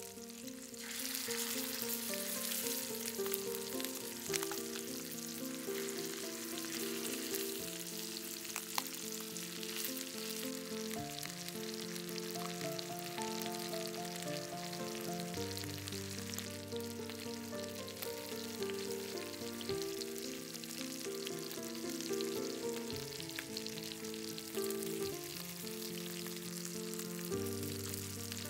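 Chicken drumsticks frying in butter and olive oil in a cast-iron pan: a steady crackling sizzle that grows louder about a second in, with soft background music under it.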